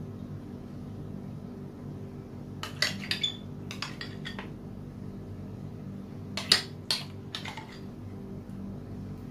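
Metal spoon clinking and scraping against a glass bowl and glass cups as thick custard is scooped and spooned out. The clinks come in two short clusters, the first about three seconds in and the loudest about six and a half seconds in, over a steady low hum.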